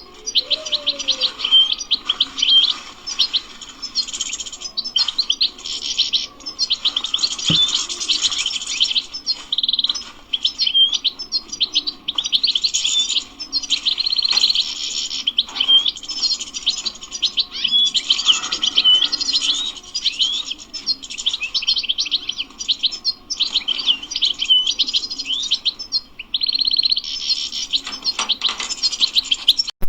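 European goldfinch singing a long, fast twittering song of rapid chirps and trills mixed with buzzy held notes, with a few brief pauses.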